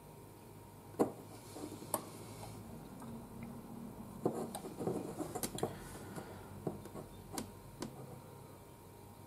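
Light clicks, taps and knocks of a small painted bust on its wooden plinth being handled and turned in the hands, with a sharper click about a second in and a busy patch of small clicks and rubbing around the middle.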